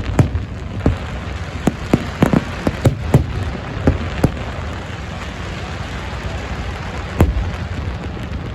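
Aerial fireworks bursting: a quick run of sharp bangs through the first four seconds, then a steady dense hiss with one more bang about seven seconds in.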